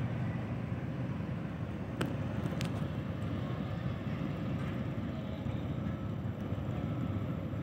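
Steady low rumble of a large passenger ship's engines running at the berth as it is unmoored for departure. Two short clicks about two seconds in.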